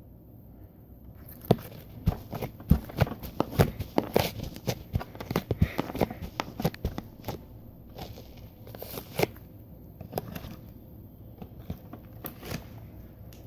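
Homemade slime being squished and stretched by hand, giving a rapid run of sticky clicks and air-bubble pops that thin out to scattered pops in the second half.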